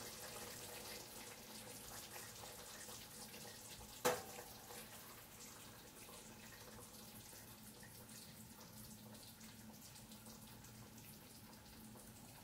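Faint steady room noise with a single sharp click, briefly ringing, about four seconds in.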